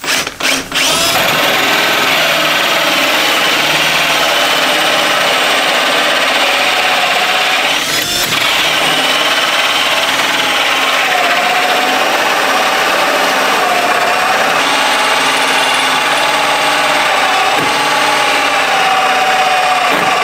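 Power drill running a hole saw through the doghouse wall: a couple of short trigger pulls, then one long continuous cut with a brief dip about eight seconds in.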